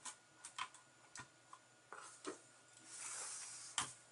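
Hands handling an opened Apple Mac Mini and its optical-drive frame: scattered light clicks and taps of plastic and metal parts. About three seconds in there is a brief scraping rustle, and a sharp click, the loudest sound, comes just before the end.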